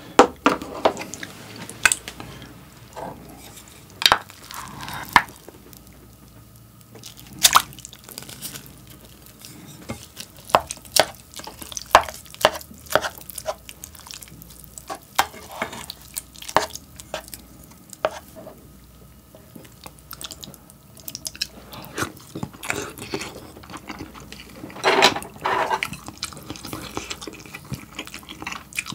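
A spoon clinking and scraping in a small saucepan as cooked rice is stirred into ramen broth, with wet mixing sounds and irregular sharp knocks; a plastic container lid is handled near the start.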